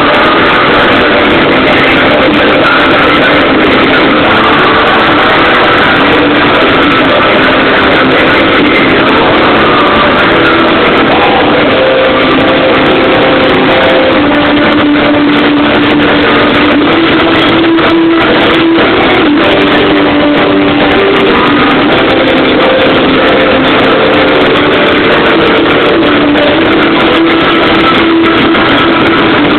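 Loud live rock music from a band on stage, recorded so close to overload that it is heavily distorted and dull, with held notes sounding through a dense wash of sound.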